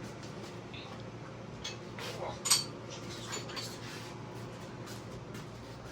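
A few light metallic clinks and knocks from metal lathe parts being handled, with one sharper clank about two and a half seconds in.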